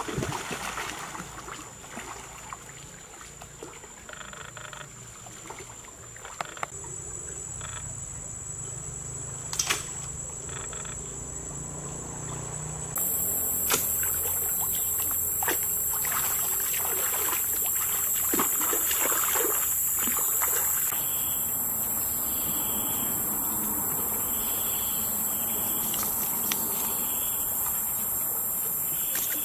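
A steady high-pitched chorus of forest insects, which gets louder and brighter suddenly about 13 s in, with a call repeating about once a second near the end. A single sharp crack comes near 10 s, and splashes in shallow stream water follow in the middle.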